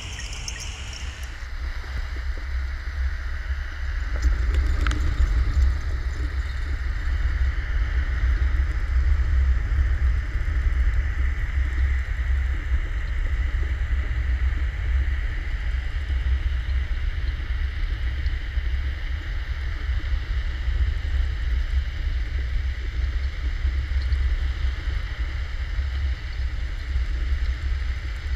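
Steady low rumble and hiss of water rushing past an underwater camera mounted on a bottom trawl net under tow. A high steady whine cuts off about a second in, and the rumble grows louder about four seconds in.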